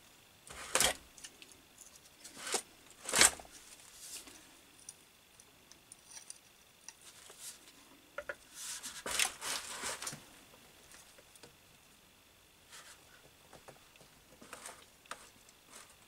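Clicks, knocks and scrapes of channel-lock pliers on the hard plastic of a small petrol engine as a very tight spark plug cap and cover are worked at. Sharp knocks about a second in and about three seconds in, a cluster of clicks and scrapes around nine seconds, and a few faint ticks near the end.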